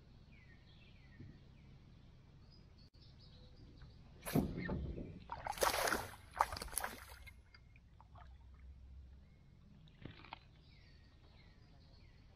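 Small birds chirping off and on over a faint low hum. About four seconds in comes a few seconds of loud water splashing and knocking against a kayak.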